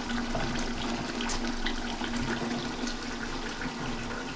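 Chicken in green masala paste simmering in a large aluminium pot, a steady bubbling and crackling, with a steady low hum underneath.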